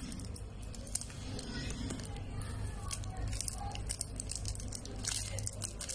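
Clear plastic wrapper on a stick of modelling clay crinkling and crackling in many small sharp bursts as it is cut with scissors and pulled open by hand, over a low steady hum.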